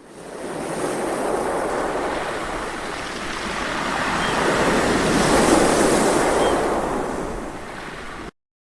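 A rushing noise like ocean surf, swelling and easing twice. It fades in and cuts off suddenly near the end.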